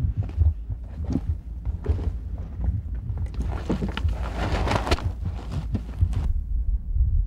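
Footsteps and rustling of clothing and heather, with light knocks, as hunters get out of an off-road vehicle carrying a rifle and crouch beside it, over a steady low rumble. The rustling is loudest in the middle and stops suddenly about six seconds in.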